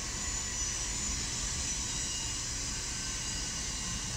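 Freight train's boxcars rolling past on steel wheels over the rails: a steady rumble and rush with thin high squeals coming and going over it.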